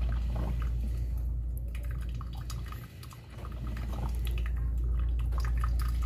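Drip coffee maker brewing: hot water gurgling through and coffee trickling and dripping into the glass carafe, as irregular small pops and ticks over a steady low hum. The sound dips briefly about halfway through.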